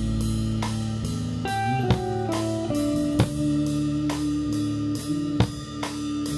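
Live band playing electric guitar, electric bass and drum kit: a steady drum beat under held bass notes, with a short run of notes stepping downward about a second and a half in.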